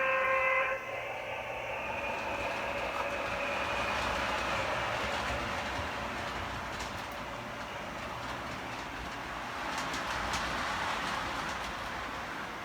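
Model train passing: a short horn blast right at the start, then its running and rolling noise, which swells twice as it goes by, with a few faint clicks.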